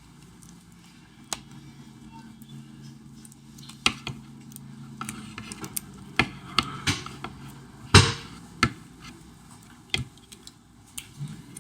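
Scattered sharp clicks and light knocks of small phone parts and tools being handled on a workbench during smartphone reassembly. The clicks bunch up in the middle, and the loudest knock comes about eight seconds in.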